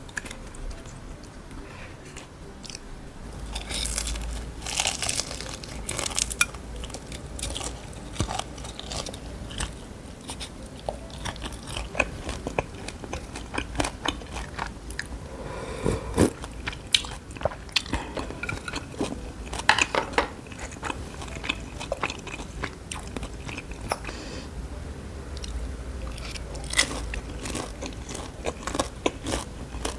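Close-miked crunching and chewing of fried Vietnamese spring rolls (chả giò), the crisp fried wrapper crackling in clusters of bites.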